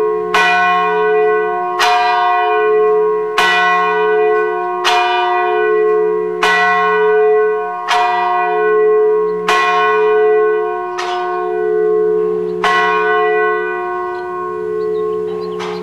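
A single church bell tolling, struck about every second and a half, each stroke ringing on with a wavering hum into the next. The strokes stop about thirteen seconds in and the ring dies away.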